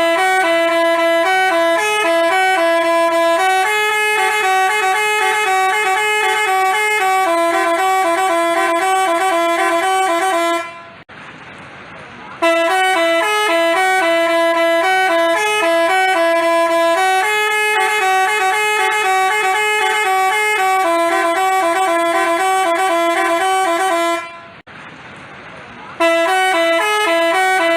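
Basuri telolet horn, a multi-tone bus horn, playing a stepped tune of several notes. It breaks off twice for about a second and a half and starts the same tune over from the top.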